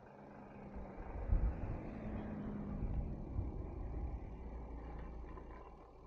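A car passing the bicycle: its engine and tyre noise swells about a second in, holds for a few seconds with a faint steady hum, and fades away near the end.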